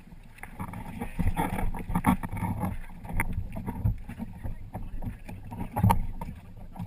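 Water splashing and slapping against the hull of a Hobie Tandem Island sailing kayak under way, with wind buffeting the microphone and irregular knocks on the boat.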